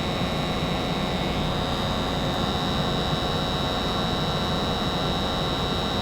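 American Standard 90% gas furnace running with its circulating blower just come on, a steady rush of air and motor noise with a thin, steady high whine that grows a little stronger about a second and a half in.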